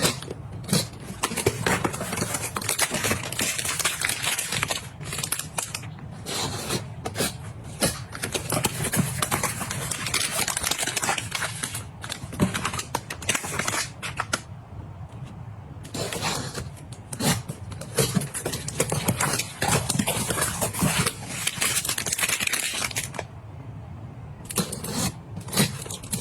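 Objects and packaging being handled close up: a continuous run of rustling, scraping and small clicks and taps, easing off briefly twice.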